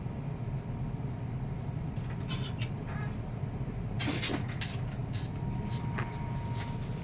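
Soldering work: small clicks and crackles of solder and flux at the joint and of the leads being handled, over a steady low hum. The clicks come in from about two seconds in and are densest around four seconds, and a faint thin whine joins near the end.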